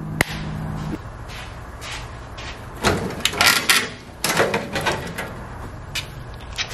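Rusty sheet-metal lower cowl panel of a 1965 Ford Mustang scraping and clanking in irregular bursts as it is wrenched free of the body.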